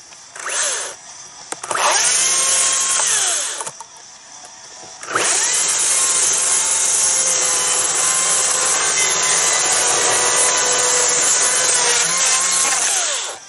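Makita 36-volt battery chainsaw revving in two short bursts, then cutting through a pine log for about eight seconds. Its electric motor whine winds down after each burst.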